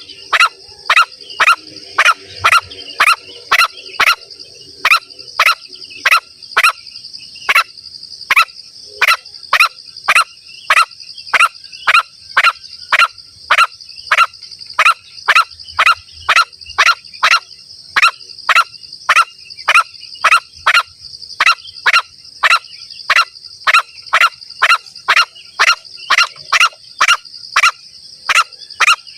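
Green junglefowl lure call: short, sharp calls repeated evenly, about two a second, over a steady high-pitched drone.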